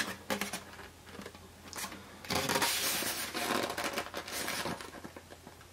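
Styrofoam packaging being handled: a few light knocks, then a couple of seconds of scraping, crunching rustle.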